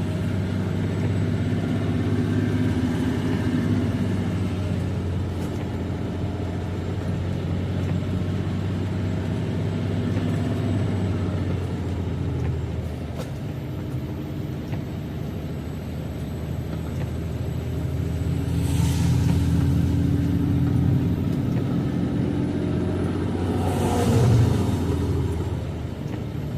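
Semi-truck engine droning steadily, heard from inside the cab. Near the end come two short bursts of hiss, about five seconds apart.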